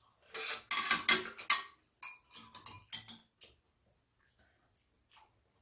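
Metal spoons and chopsticks clinking and scraping against ceramic bowls during a meal, a quick run of clinks in the first two seconds, a few more around the middle, then only light scattered ticks.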